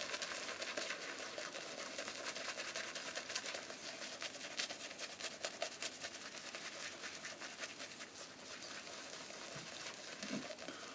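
Semogue 1520 boar-bristle shaving brush scrubbing Williams mug soap lather on a face: a steady, faint wet crackle of many fine ticks.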